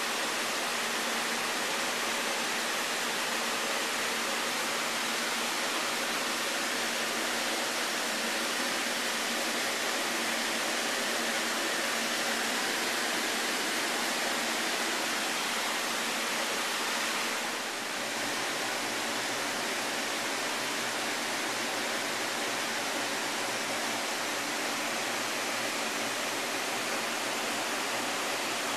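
Steady rush of water pouring from inflow pipes into sea turtle rehabilitation tanks, with the tanks' circulation plumbing running. It eases slightly once, about two-thirds of the way through.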